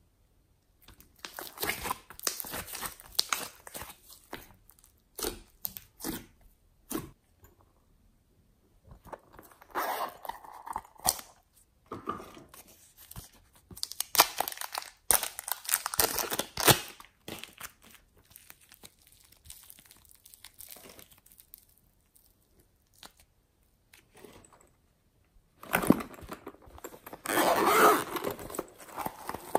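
Hands crinkling and tearing thin plastic packaging, in several crackly bursts with quiet stretches between. Near the end a zippered pencil case is handled and opened.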